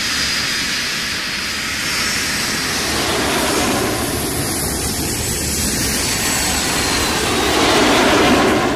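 Jet airliner engine noise, a recorded takeoff sound effect in a dance track's intro: a steady rushing rumble that slowly grows louder.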